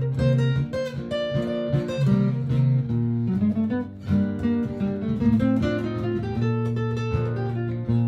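Martin GPCPA4 acoustic guitar improvising over a looped guitar part: sustained low chords keep ringing underneath while quick picked single notes run over the top.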